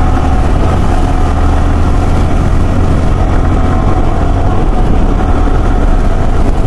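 Motorcycle on the move: a loud, steady low rumble of engine and riding noise, with no change in pace.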